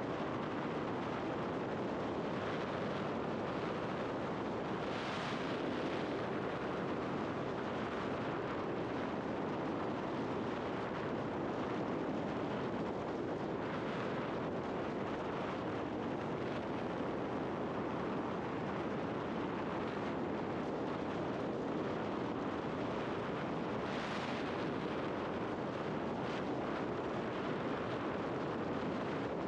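Steady wind rush over the microphone, mixed with tyre and road noise from a scooter riding at road speed. It swells briefly twice, about five seconds in and again about five seconds before the end.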